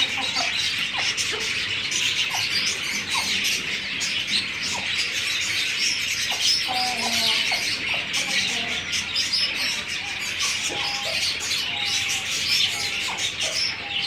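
Dense, continuous chirping of many birds, with scattered shorter, lower calls mixed in.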